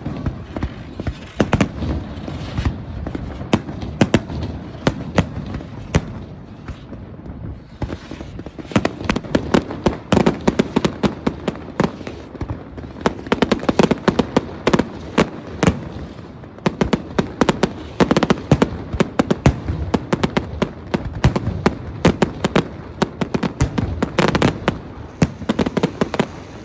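Fireworks display: scattered bangs and pops at first, then from about eight seconds in a rapid, almost continuous string of bangs and crackles.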